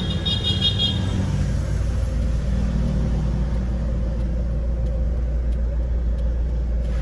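Steady low vehicle rumble, with a brief high warbling tone in the first second.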